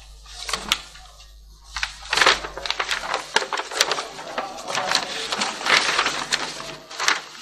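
Loose sheets of paper rustling and crackling as they are picked up and leafed through right by a podium microphone, starting about two seconds in and going on in irregular bursts.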